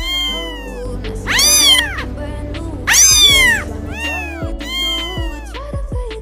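Kitten meowing about five times, high and rising then falling, the two loudest meows about one and a half and three seconds in, over background music with a steady beat.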